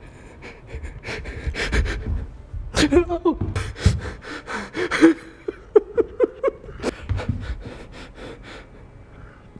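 A man breathing hard and gasping in fright, with short gasping cries through the middle, over a quick run of knocks and thumps from hurried movement.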